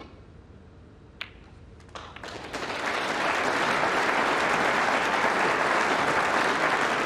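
A snooker cue strikes the cue ball, and about a second later a sharp click as the cue ball hits the red. From about two seconds in, audience applause builds and carries on steadily, greeting a long pot of the red.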